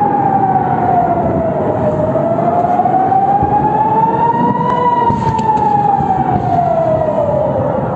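Air-raid siren wailing in slow sweeps: the pitch falls over about two seconds, climbs for about three, then falls again toward the end. It is the rocket alert warning of incoming rocket fire.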